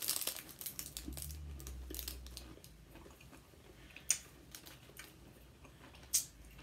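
Cellophane candy wrapper crinkling faintly as a peanut butter log is unwrapped, then quiet chewing with a couple of sharp clicks about four and six seconds in.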